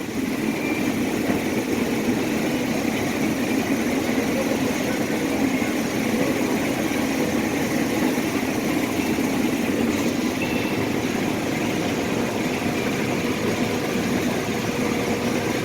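Claas Lexion 570R combine running steadily while harvesting corn, heard from inside the cab as an even mechanical drone.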